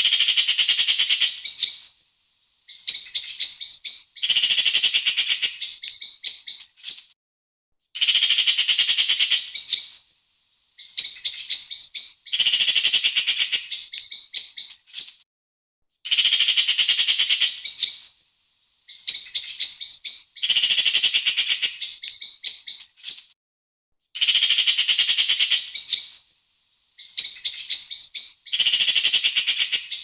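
Eurasian magpie chattering: bursts of rapid, harsh rattling calls a few seconds long, about eight of them, separated by pauses of around a second.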